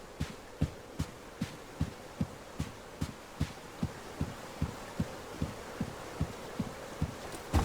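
A steady, evenly paced low thumping pulse, about two and a half beats a second, with one louder hit near the end.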